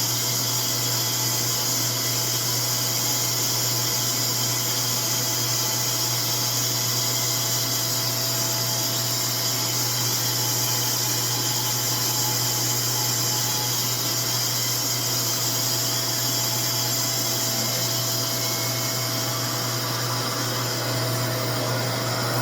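RevAir reverse-air hair dryer running steadily, its suction motor giving a constant low hum under an even airy hiss as it draws a section of hair into its wand.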